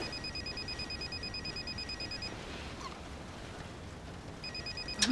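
Telephone ringing with a rapid electronic trill: one ring of about two seconds, a pause of about two seconds, then the next ring starting near the end.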